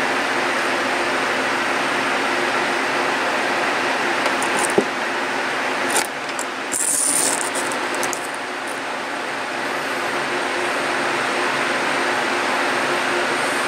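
Steady background hum and hiss. Just before five seconds in there is a sharp click, followed by about three seconds of handling rustles and knocks as the camera is moved.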